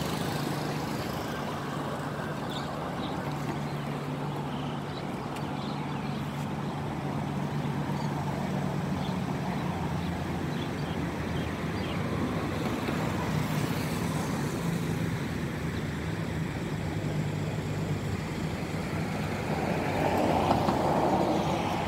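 Steady road traffic noise with a low engine hum, swelling louder near the end as a vehicle goes by.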